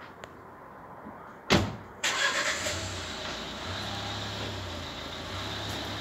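A sharp thump, then about two seconds in a steady rushing noise like road traffic starts abruptly, with a low hum under it.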